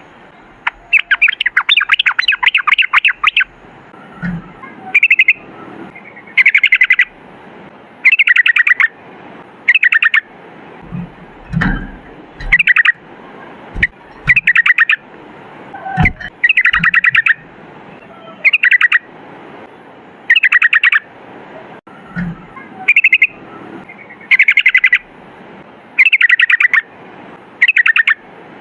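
Yellow-vented bulbul (trucukan) singing: short bursts of rapid bubbly rolling notes, repeated every second or two. Occasional low thuds sound underneath.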